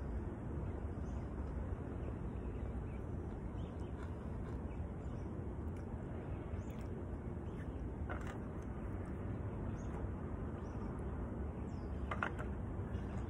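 Outdoor ambience: a steady low rumble with a few faint short chirps, the clearest about twelve seconds in.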